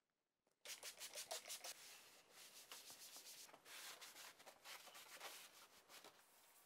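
Faint strokes of a cloth rubbing back and forth over the smooth melamine surface of a concrete countertop mould as it is wiped clean and waxed. They start about half a second in, a quick run of strokes at first, then softer.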